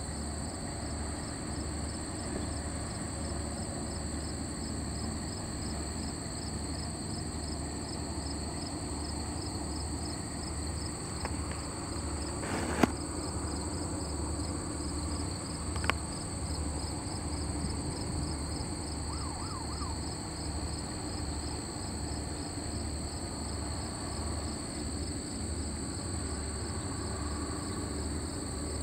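Insects trilling steadily in the shrubs, a continuous high-pitched drone with a slight regular pulse, over a low rhythmic hum; a single sharp click cuts through about halfway.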